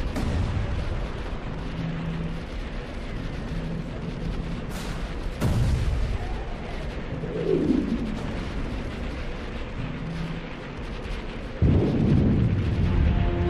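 Film explosion sound effects: a continuous rumble of blasts, with a sudden loud blast about five seconds in and a louder one near the end. A falling sweep sounds between them.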